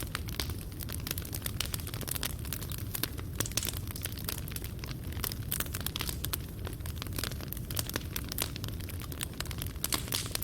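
Fireplace fire crackling: burning wood and charcoal popping in quick, irregular snaps over a steady low rumble of the flames.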